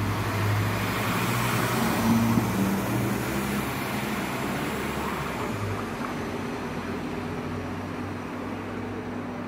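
Class 648 diesel multiple unit pulling out of the station: the diesel engine's low hum and the rumble of the cars passing close, fading as the train moves away.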